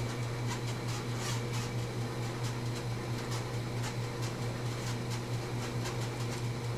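A steady low electrical hum with several higher overtones, with faint irregular ticks over it.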